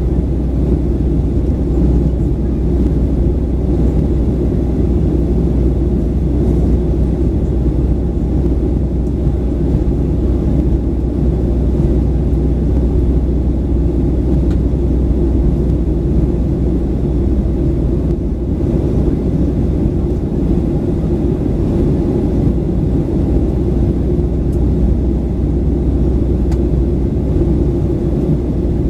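Steady cabin drone inside a Boeing 737-900 with its CFM56-7B engines running, a dense low rumble with airflow noise and no change in pitch.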